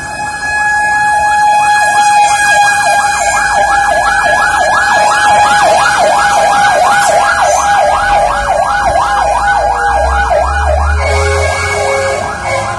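Fire truck siren sounding a fast warble, sweeping up and down about three to four times a second over a steady tone, loud throughout. A truck engine rumbles low under it in the middle stretch.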